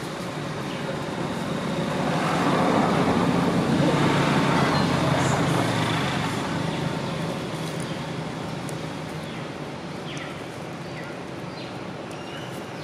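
A motor vehicle driving past: a steady engine hum and road noise that swell to their loudest about four seconds in, then fade away over the next few seconds.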